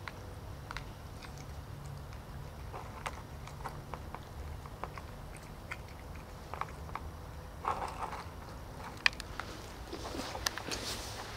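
Two domestic cats chewing and eating. The sound is a run of small, irregular clicks and smacks that grows busier and louder near the end.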